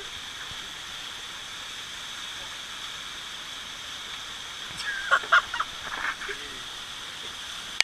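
Steady rush of water from the Maracas waterfall and stream, with a steady high hum over it and brief faint voices about five seconds in.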